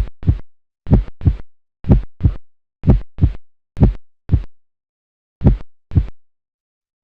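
Heart sounds of a small animal: paired lub-dub beats (first and second heart sounds) about once a second, with one longer pause about two-thirds of the way through.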